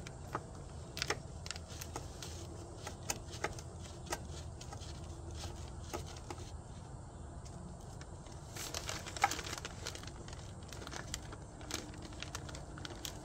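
Light metallic clicks and taps of a hand tool working at the throttle position sensor's screws and back clip on an outboard engine, with crinkling of the paper tucked beneath it to catch parts. The clicks come singly and irregularly, with a denser run of clicking and rustling about nine seconds in.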